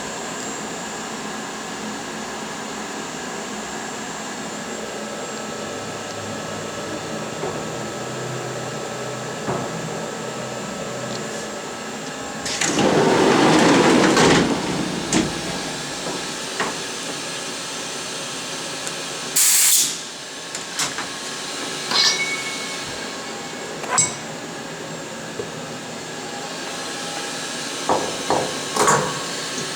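Bridgeport vertical machining centre humming steadily while it homes its axes and loads an Erowa pallet. Partway through comes a louder, noisy stretch of a couple of seconds, then a short sharp hiss, followed by several sharp clicks and knocks.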